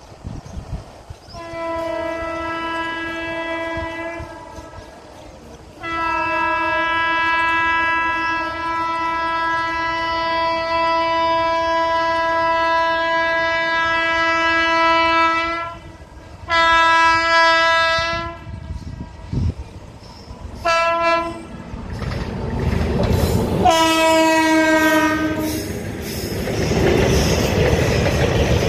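Express train's locomotive horn sounding five times as it approaches: a medium blast, one long blast of about ten seconds, a shorter one, a brief toot, and a final blast that drops in pitch as the locomotive rushes past. The rumble and clickety-clack of the passing coaches build up over the last several seconds.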